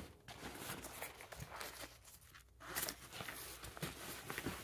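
Faint rustling and scuffing of padded fabric hockey pants being handled and turned over by hand, a little louder about three seconds in.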